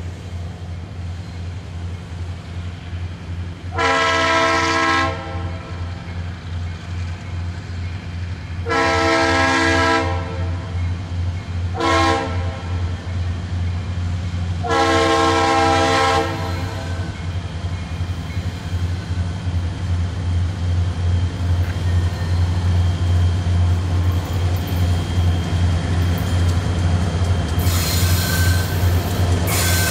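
EMD GP38-2 diesel locomotive sounding its air horn in the grade-crossing pattern, long, long, short, long, as it approaches. Under the horn the locomotive's diesel engine drones steadily and grows louder as it nears, with a rush of train noise near the end.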